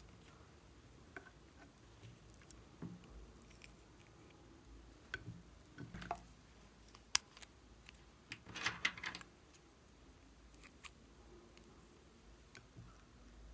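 Faint handling sounds of small plastic items: a plastic spatula scraping lip balm out of a plastic pot, with scattered light clicks and taps, a sharp click about seven seconds in and a brief scraping rustle about nine seconds in.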